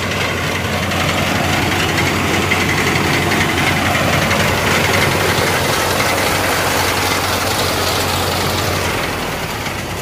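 Al-Ghazi 65 hp tractor engine working under load while driving a front-mounted wheat reaper through standing wheat. A steady, dense engine and machinery noise with a low hum, easing slightly near the end.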